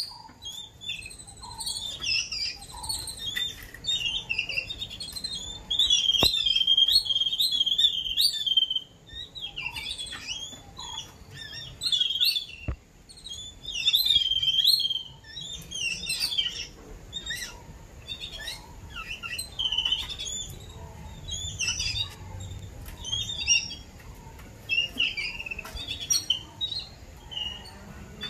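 A group of babblers ('seven sisters'), adults and caged chicks, chattering with rapid, harsh squeaky calls in bursts, as the adults feed the chicks.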